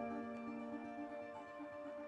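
Background music: slow, sustained held chords.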